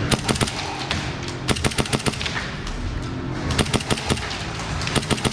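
Airsoft guns firing in quick bursts of sharp clicks, four bursts spread across a few seconds.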